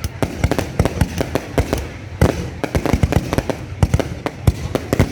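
Fireworks bursting in quick, irregular succession, many loud bangs and cracks a second with no pause.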